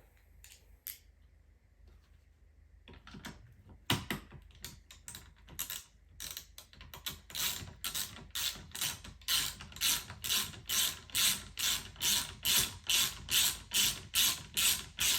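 Ratchet wrench driving in a seat-rail bolt: a few scattered clicks at first, then a steady run of ratcheting strokes at about two a second as the bolt is wound in.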